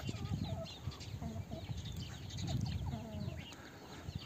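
A flock of chickens clucking, with many short, high chirping calls overlapping one another.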